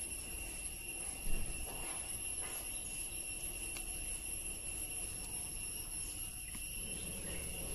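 A steady high-pitched whine runs throughout over a low background rumble, with a soft knock about a second in and a few faint clicks.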